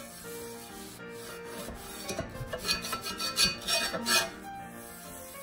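Metal spatula scraping a stuck, torn pancake across a flat stovetop griddle: a quick run of rasping strokes starting about two seconds in.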